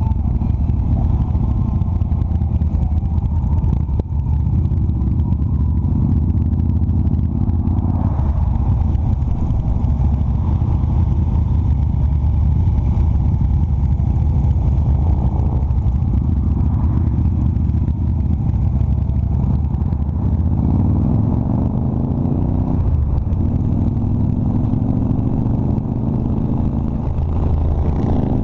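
Cruiser motorcycle engine running steadily under way, heard from the rider's seat. The engine note rises several times in the second half, with brief breaks between.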